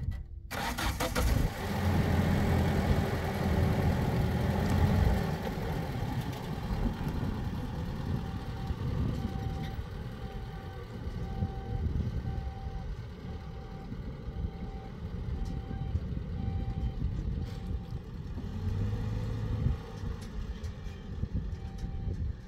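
Pickup truck engine running, loudest in the first few seconds, as the truck backs away. A reversing alarm beeps at one steady pitch a little more than once a second from about eight seconds in, stops for a moment while the engine rises, then starts again near the end.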